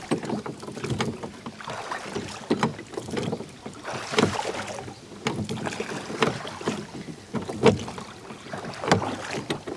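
Two men rowing a wooden rowboat together: the oars knock in the rowlocks and dip into the water, one stroke about every second and a half, over a steady wash of water noise.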